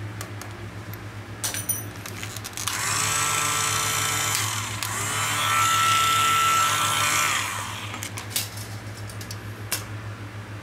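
Mini electric drill run twice, about two seconds each. Each time the motor whines up to speed, holds a steady high whine and winds down when released; the second run is louder. A few light handling clicks come before and after.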